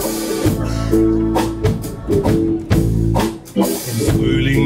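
Live band playing an instrumental passage: double bass, drum kit and guitar, with steady drum hits under sustained notes.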